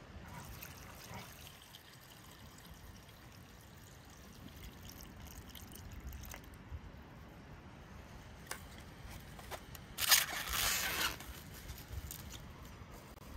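Water poured from an enamel basin trickling into a clay pot of green berries. About ten seconds in comes a loud crackle of about a second as plastic cling film is pulled off its roll and stretched over the pot.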